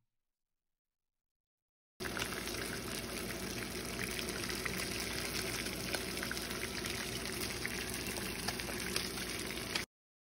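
Croaker fish pieces frying in hot oil in a pan: a steady sizzle with small crackles. It starts suddenly about two seconds in and cuts off shortly before the end.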